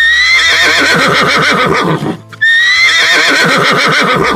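Horse whinnying twice, the same long neigh played two times over: each one opens on a high note and breaks into a shaking, wavering tail.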